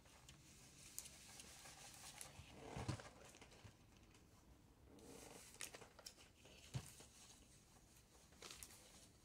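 Faint rustling and crinkling of freezer paper as a household iron is pressed and slid over it, with a soft knock about three seconds in and another near seven seconds.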